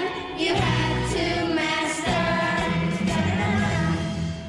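A song with a group of voices singing over instrumental backing with a steady bass line.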